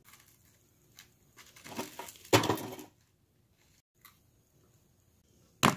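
Crisp fried food crunching and crackling as it is handled, for about a second and a half, loudest around the middle. A single sharp click comes near the end.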